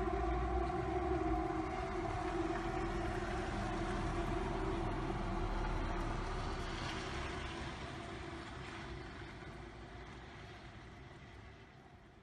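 A steady droning hum with overtones that fades out over the first few seconds, under a rushing rumble that slowly dies away.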